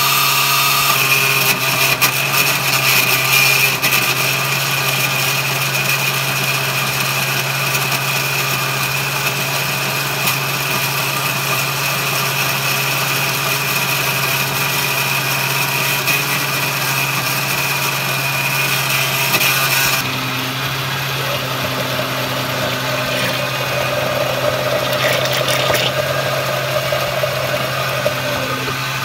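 Oster glass-jar countertop blender running steadily, pureeing roasted chiles, tomato and liquid into a smooth salsa. About twenty seconds in the sound turns duller as its high hiss drops away.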